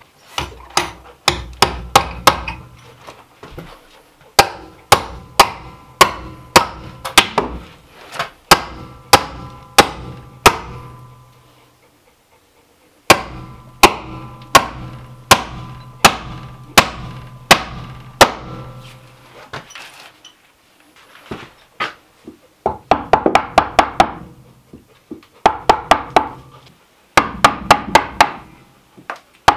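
Hammer driving nails into wood at a cabin door frame: sharp, ringing strikes about two a second in runs, with a short pause about twelve seconds in and quicker, lighter taps near the end.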